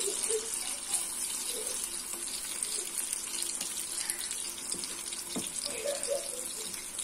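Hot oil sizzling steadily as battered fritters deep-fry in a kadai, a continuous bright hiss.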